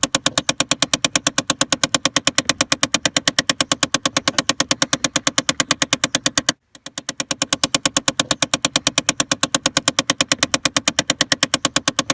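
Rapid, even clicking, about six clicks a second, from a Chevy Impala's HVAC blend door actuator skipping on its worn gears: the dashboard clicking fault. It breaks off briefly about six and a half seconds in, then starts again.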